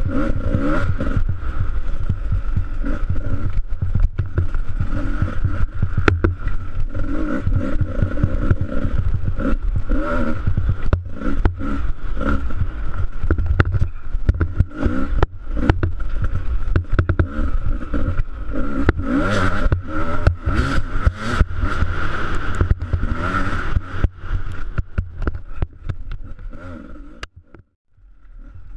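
Dirt bike engine revving up and down with the throttle while riding a rough, muddy snow trail, with short knocks and rattles; near the end the sound drops away almost to nothing for about a second, then the engine comes back.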